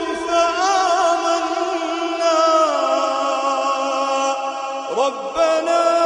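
Quran recited in the melodic, drawn-out tajweed style by a single voice: long held notes decorated with quick ornamental turns, sliding down to a lower held note, a short break about five seconds in, then another long held note.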